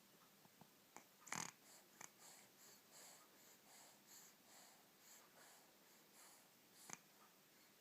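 Faint snoring: a short snort about a second and a half in, then soft, quick, even breaths, with a few small clicks.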